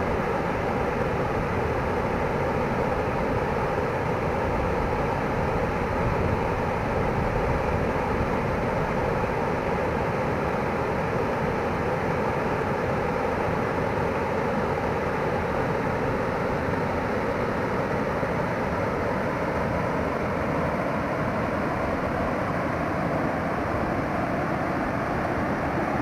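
Steady rushing of creek water pouring over a low, wide rocky waterfall.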